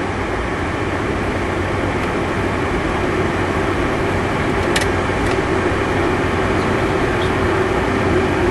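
Steady cockpit noise of a Cessna Citation V Ultra business jet in flight: engine and airflow noise, gradually growing louder, with a couple of faint clicks.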